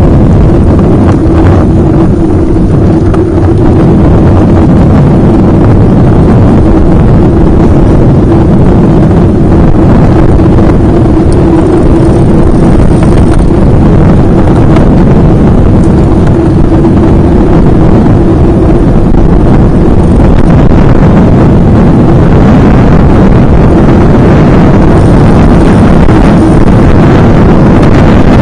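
Wind buffeting the microphone of a bike-mounted camera while riding a road bike at speed, a loud steady rush with a constant low drone.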